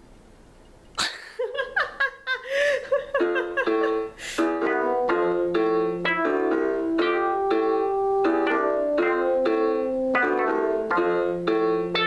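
A few loud irregular sounds with sliding pitch, then a keyboard riff of short, plucked-sounding notes repeating steadily at several notes a second.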